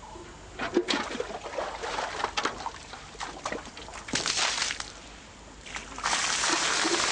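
Water splashing and sloshing in short, irregular bursts, then a steady pour of water for about a second and a half near the end.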